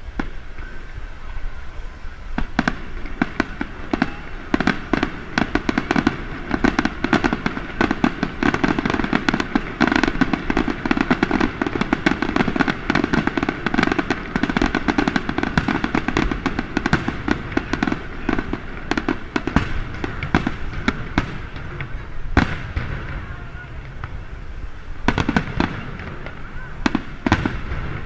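Aerial fireworks bursting in a fast, dense run of bangs and crackles. About 22 seconds in the bursts thin out, then pick up again near the end.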